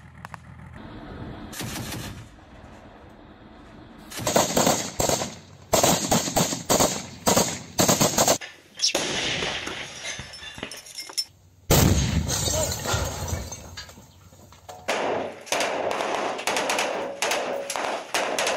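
Rifle gunfire: strings of sharp shots in quick succession, a sudden louder report about twelve seconds in, then more shots near the end.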